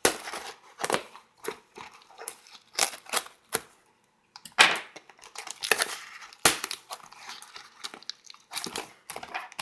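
Shipping packaging being opened by hand: irregular crinkling and tearing, with a few sharp cracks, the loudest about four and a half and six and a half seconds in.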